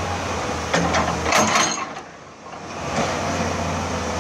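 Excavator's diesel engine running with a steady low hum, with several sharp metallic clanks about one to two seconds in. The sound drops away briefly just after them and then comes back.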